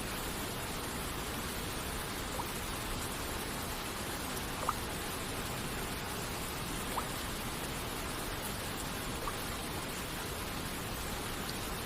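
Steady rain and waterfall hiss, with single water droplets plinking in it about every two and a half seconds, four in all.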